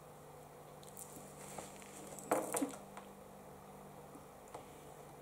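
Quiet room with a low steady hum, and a brief cluster of soft clicks and rustles a little over two seconds in, from small handling movements at a table.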